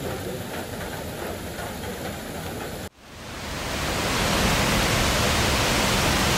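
A quieter, steady background that cuts off about three seconds in, then the rush of river rapids over boulders, fading in over a second or so and running as a loud, steady roar of water.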